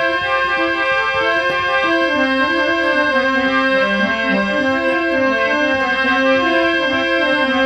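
Instrumental break in a Marwari folk song: a keyboard melody of short stepped notes played over a steady held drone, with no singing.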